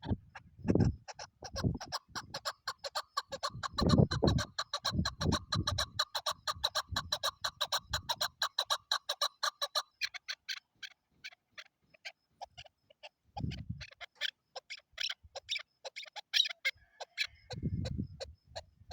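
Female chukar partridge calling: a fast, even run of sharp clucking notes, about five a second, for several seconds, then slower scattered notes. Dull low thumps break in now and then.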